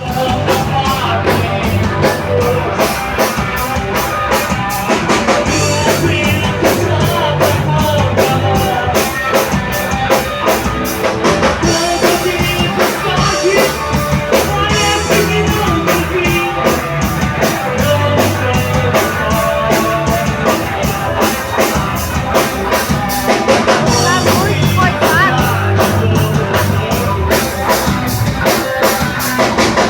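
Rock band playing live at full volume, with a steady driving drum-kit beat and fast, evenly repeating cymbal strokes.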